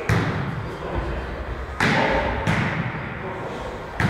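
A volleyball being struck by players' hands and forearms during a rally, four sharp hits with long echo from the gym hall.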